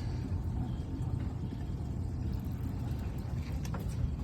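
Boat's motor running at idle, a steady low rumble, with a few faint clicks about three and a half seconds in.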